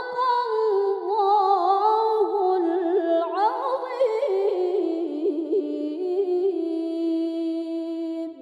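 A woman's voice in melodic Quran recitation (tilawah): one long ornamented phrase, with winding turns and long held notes, that stops at the end with a short echoing fade.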